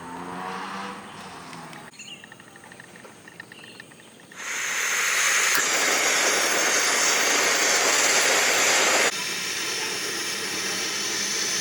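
Loud, steady hissing rush that starts suddenly about four seconds in and cuts off abruptly about five seconds later, leaving a quieter steady noise. Before it there is a fainter, pitched sound.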